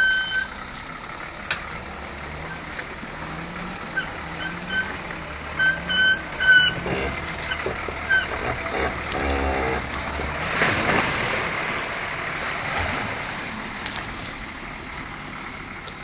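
Off-road 4x4's engine revving up and down in repeated swells as it pushes through thick brush, with a scraping rush of branches about two-thirds of the way in. Several short high beeps sound at the start and again a third of the way through.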